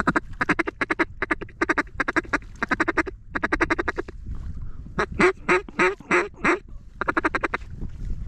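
Mallard duck call blown in quick runs of quacks, with a slower run of about six louder, drawn-out quacks in the middle and one more quick run near the end.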